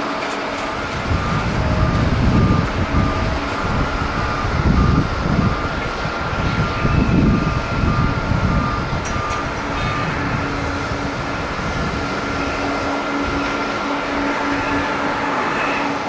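Jet airliner landing, a Japan Airlines Boeing 787, its engines giving a steady whine and rumble, with gusts of wind buffeting the microphone in heavy low rumbles for the first several seconds before easing off.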